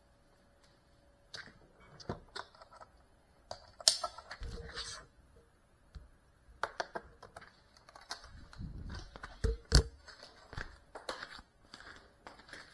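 Scattered clicks, knocks and rustling from a small camera being handled and moved, with two louder knocks, about four seconds in and near ten seconds, and footsteps toward the end.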